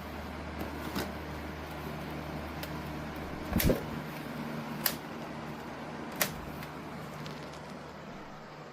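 Dreo Lynx S table fan running with a steady airy whir and a low hum, broken by four sharp clicks, the loudest a double click about three and a half seconds in.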